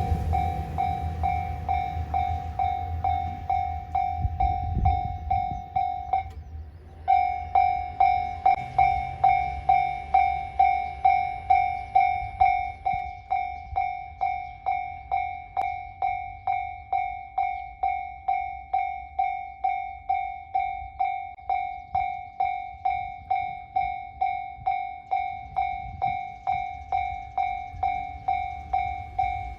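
Japanese railway level-crossing warning bell ringing its steady kan-kan, about two strikes a second. It stops for a moment about six seconds in, then starts again. Under the bell, a passing train's low rumble dies away over the first several seconds.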